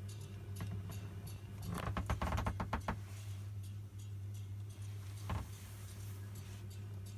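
Ela 103 record-cutting lathe running with a steady hum and light regular ticking. A quick rattling clatter comes about two seconds in, and a single knock about five seconds in.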